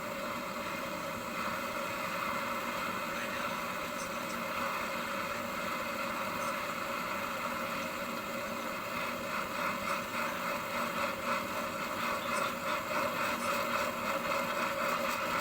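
A small electric motor-driven tool running steadily with a constant whine and a slight rattle.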